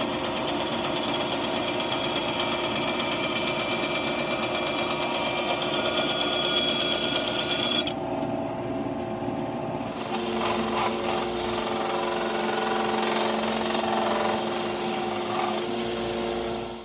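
Bandsaw running and cutting through a wooden block, the saw's noise easing off about eight seconds in. From about ten seconds in, a 1-inch belt sander runs with a steady hum as the wood is sanded on its belt.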